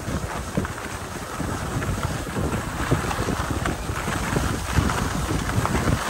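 Wind rushing over the microphone, buffeting it unevenly with short gusts and swells.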